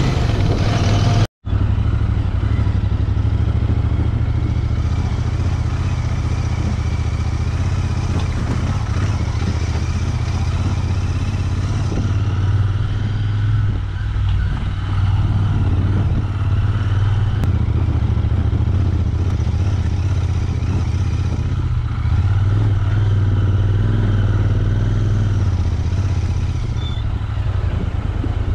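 Royal Enfield Interceptor 650's parallel-twin engine running steadily as the motorcycle is ridden, with small rises and falls in its note. The sound drops out for an instant about a second in.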